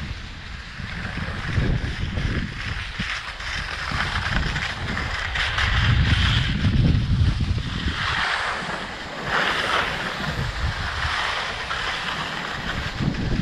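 Skis sliding and scraping over snow on a downhill run, a continuous hiss that swells and fades, with wind rumbling on the microphone.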